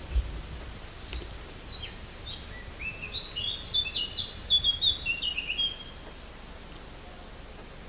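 A songbird singing a quick run of chirping notes and short falling slides for about five seconds, with a low thump at the very start.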